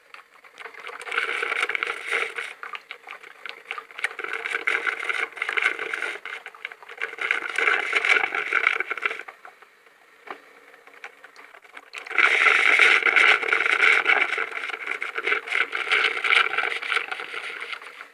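Tea and coffee machine running with a rough, crackling noise in two long spells, separated by a lull of about three seconds around the middle.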